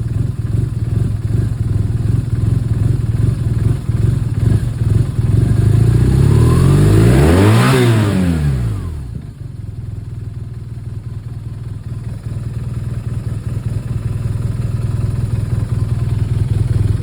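BMW R1200R boxer-twin engine idling with a pulsing beat, blipped once about six seconds in: it revs up, peaks, and falls back to idle. The owner presents the idle as rough and misfiring.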